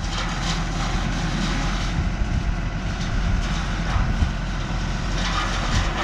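Tractor engine running steadily while its front-end loader works, a continuous low rumble.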